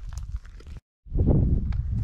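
Hiking footsteps crunching on a rocky, gravelly trail, broken off abruptly a little under a second in by an edit cut. After the cut, a loud, uneven low rumble of wind on the microphone, with footsteps on rock.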